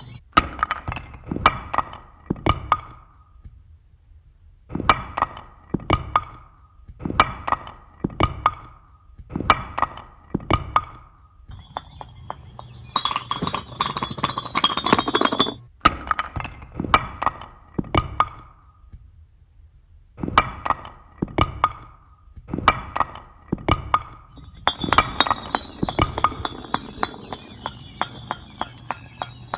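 Bricks and blocks knocked together in quick clusters of knocks, each run lasting about two seconds with short pauses between. Chimes ring over the knocking twice, once in the middle and again near the end.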